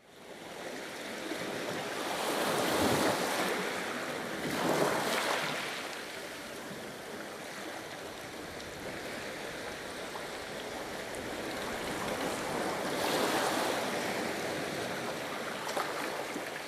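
Waves washing in, a steady rush of water that swells three times, about three, five and thirteen seconds in.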